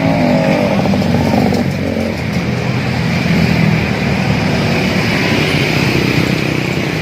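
Road traffic: motor vehicle engines running loudly, with a steady engine drone in the first second and a half.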